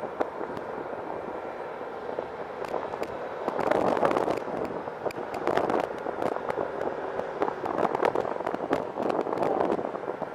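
CFM56 turbofan engines of a Boeing 737-800 running at high power, blowing jet blast: a crackling rush of noise that swells about 4 and 8 seconds in.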